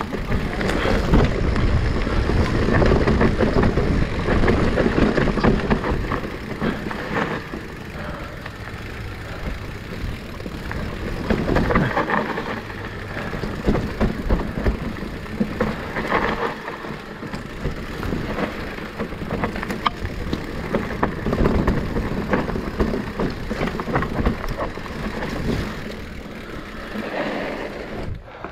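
Electric mountain bike riding a dirt trail: tyres rolling over rough ground, with frame and drivetrain rattling in a dense run of small knocks and clicks. It is loudest for the first few seconds.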